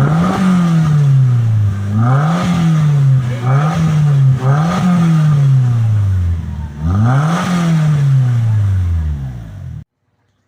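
The four-cylinder engine of a turbocharged VW Gol G3 1.0 16v, blipped five times through a homemade exhaust tip. Each rev climbs quickly and falls back more slowly. The sound cuts off suddenly near the end.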